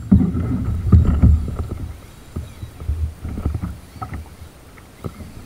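Sea kayak riding rough ocean swell: water splashing and slapping against the hull and paddle, with a heavy low rumble. It is loudest for the first second and a half, then settles to quieter, scattered lapping.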